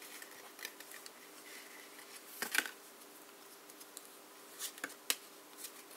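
Faint rustling and crinkling as a Magic: The Gathering booster pack's foil wrapper is opened and the cards inside are slid out and handled, a few short crinkles and card snaps, the loudest about two and a half seconds in.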